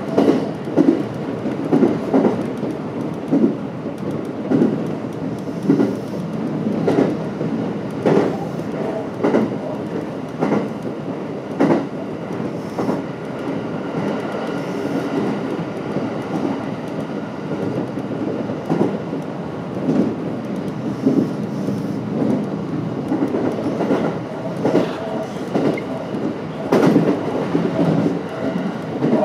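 JR West 227 series electric multiple unit running at speed, heard from on board. Its wheels click over rail joints at irregular intervals, roughly once a second, over a steady running rumble.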